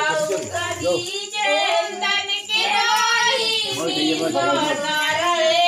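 Several high voices singing a song together, with long drawn-out wavering notes.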